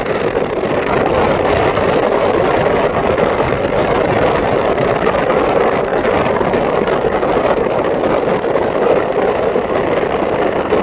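Steady rushing road and wind noise of a car driving at speed.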